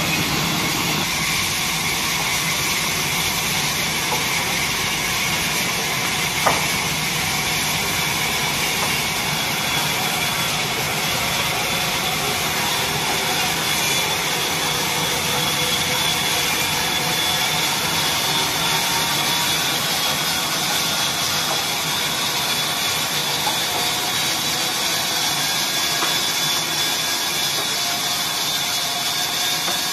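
Electric horizontal log band saw running steadily, its blade cutting through a log with a continuous hiss and a high whine. One sharp click about six and a half seconds in.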